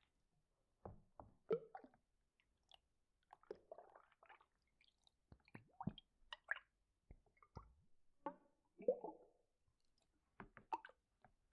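Soft, wet squishing and clicking sounds, irregular and scattered, a few each second with short gaps between.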